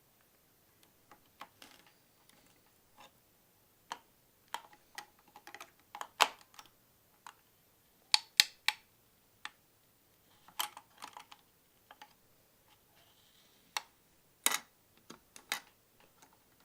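Irregular sharp clicks and small metallic taps as an Intel Core i7-8700K processor is set into its motherboard socket and the socket hardware is handled and closed, with the loudest clicks about eight and fourteen seconds in.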